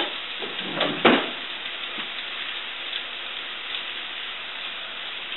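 Sweet potatoes frying in oil in a pan on a gas burner, a steady sizzle, with one brief louder burst about a second in.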